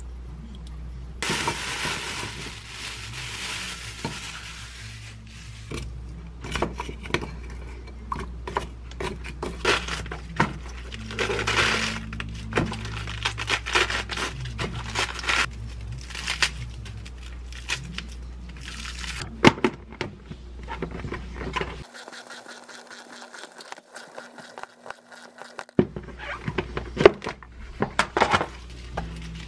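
Kitchen prep sounds: from about a second in, a steady hiss lasting about four seconds. Then a long run of crisp tearing and rustling as iceberg lettuce leaves are torn and dropped into a plastic bowl, with light knocks of plastic. Near the end a plastic salad spinner is handled, with more knocks.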